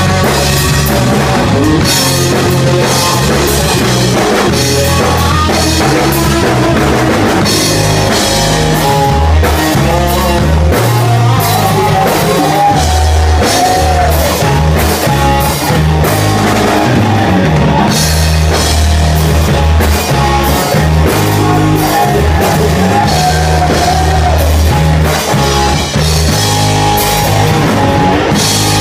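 Rock band playing live and loud: a drum kit hit hard and steadily, with bass, guitar and a singer's voice.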